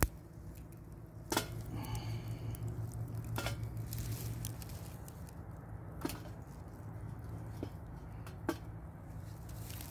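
Small wood fire burning in a Tomshoo titanium folding camp stove under a pot, a steady low rumble broken by a handful of sharp crackles and pops. Near the end a stick is pushed in through the stove's feed door.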